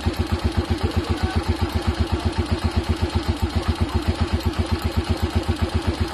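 Honda TMX Alpha 125 cc single-cylinder four-stroke engine idling with even, steady firing pulses of about ten a second. It carries a high-pitched tick (lagitik) from the valve train, which the owner means to cure by adjusting the valve clearance.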